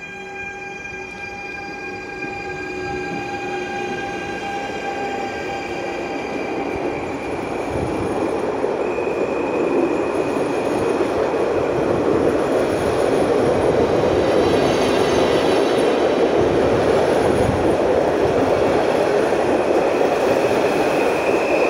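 Stadler FLIRT electric multiple unit (PKP Intercity ED160) pulling away: a steady electric whine of several tones at first, fading after a few seconds. Then the rolling rush of the train's wheels and body grows louder as the cars pass close by, levelling off about halfway through.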